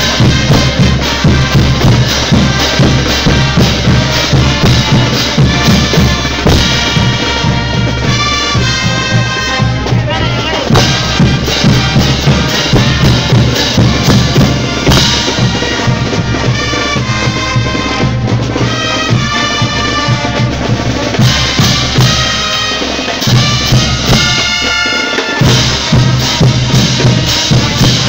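Brass band playing a tobas tune: brass instruments carrying the melody over a steady beat of bass drum and clashing hand cymbals. The low drums drop out briefly about 25 seconds in.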